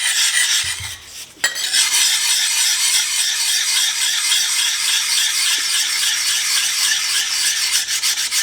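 Steel blade of a pruning chisel being rubbed back and forth on a coarse 220-grit sharpening stone, a steady gritty rasp of repeated strokes to take off the burr and belt-grinder marks. The strokes start about a second and a half in after a brief pause.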